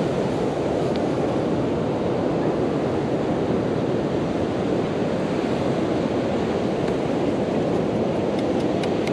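Steady rushing wash of ocean surf mixed with wind on the microphone, with a few faint ticks near the end.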